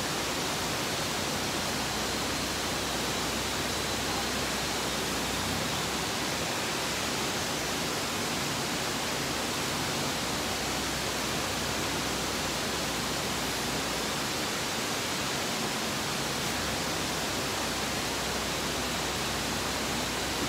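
A steady, even hiss of noise that does not change in level.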